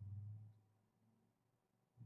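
Near silence: room tone, with a faint low hum in the first half second that fades away.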